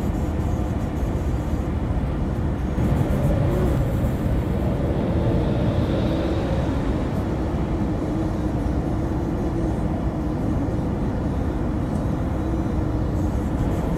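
Highway driving noise from a car at speed: a steady rumble of tyres on the road and wind, with a low engine drone. It swells slightly about three seconds in and eases off a few seconds later.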